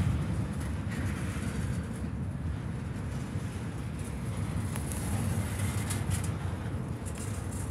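Freight train cars rolling along the track, a steady low rumble with a few brief sharp clicks.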